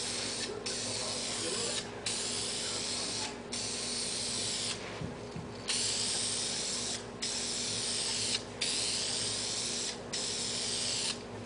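Aerosol spray-paint can hissing in a string of sweeping passes, each spray about a second long with brief breaks between them and a longer pause about five seconds in.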